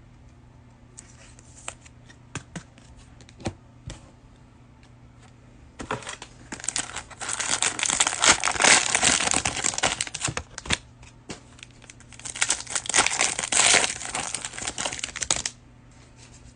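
Plastic cellophane wrapper of a trading-card cello pack being torn open and crumpled, in two long crinkling spells in the second half, after a few light clicks in the first few seconds.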